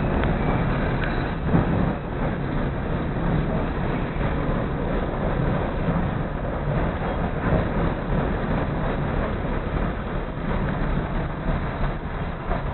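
Steady running noise inside a moving CTA 2400-series rapid-transit railcar, an even rumble of the car rolling along the track.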